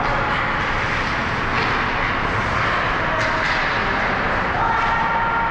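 Ice hockey game sound in an indoor rink: a steady wash of noise with a few faint clicks, and a short steady tone near the end.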